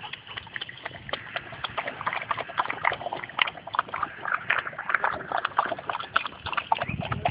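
Dog lapping water from a bowl: a quick, irregular run of wet clicking laps, several a second.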